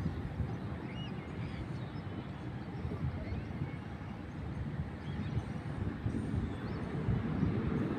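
Wind buffeting the microphone with an uneven low rumble, and a few faint bird chirps, one about a second in and another near the end.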